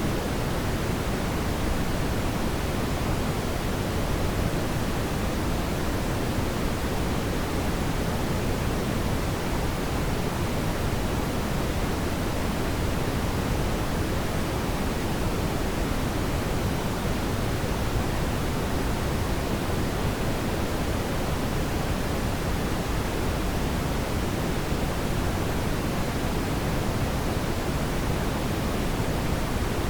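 Steady brown noise: an even, unbroken rushing hiss weighted toward the low end, with no changes or events.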